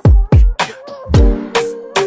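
Background music with a steady beat: deep electronic kick drums and held synth notes.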